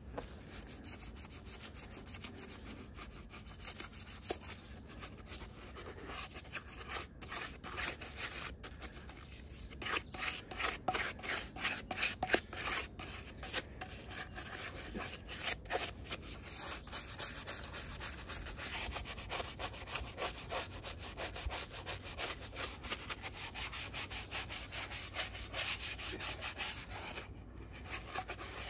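A stiff detailing brush scrubbing an alloy wheel coated in acid wheel cleaner, in quick back-and-forth strokes, several a second, with a short pause near the end.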